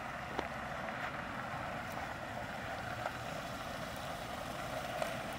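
Lexus LX470 driving slowly in a tight circle, a steady low vehicle sound with a few faint ticks and no tyre chirping: with open differentials and an unlocked center differential, the drivetrain is not binding.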